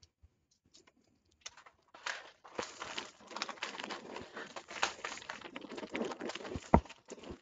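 Doritos chip bag crinkling and rustling as it is handled, with many small crackles and one louder knock near the end.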